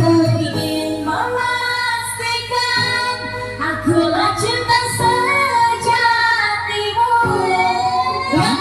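Live orkes tunggal band music: a high female voice sings a melody with vibrato and sliding notes over steady bass backing.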